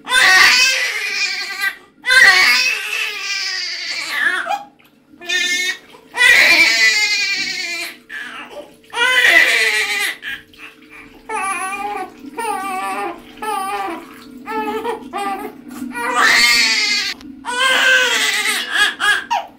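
Newborn baby crying hard during a bath: long wavering wails, several of them a second or two long, broken by short gasping cries.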